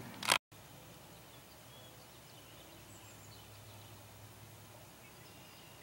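Faint steady outdoor background hiss with a few distant bird chirps now and then.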